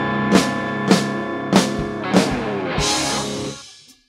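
Live rock band ending a song: a held electric guitar chord rings under five big drum hits about 0.6 s apart. The last hit is a cymbal crash that rings on before the sound fades out near the end.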